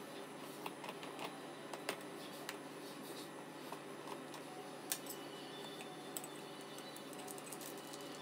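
Scattered light clicks and taps of kitchen utensils, the sharpest about two seconds and five seconds in, over a steady low hum.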